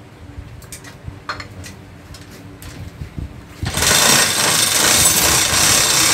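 Metal parts clinking and knocking as the engine block is handled. About three and a half seconds in, a loud, steady hissing rush with a low rumble starts abruptly from a workshop machine.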